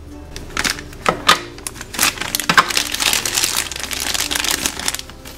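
Clear plastic packaging bag crinkling and rustling as it is handled, with irregular crackles and a few sharp clicks.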